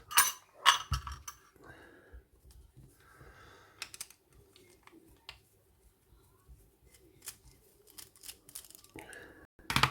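Irregular small metallic clicks, taps and light scrapes of a brass padlock and small tools being handled and worked on, with a few louder knocks in the first second and another near the end.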